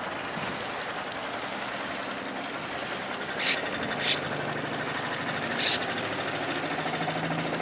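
An engine running steadily, broken by three brief, sharp bursts of hiss around the middle.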